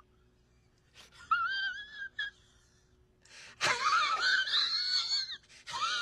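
A man's high, wavering, wheezy whine made with the voice rather than words, coming in three bursts: a short one about a second in, a longer and louder one a little past halfway, and another just before the end.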